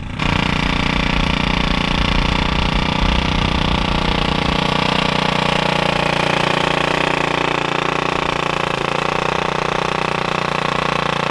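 Small gas engine of a walk-behind garden tiller running steadily as it tills soil.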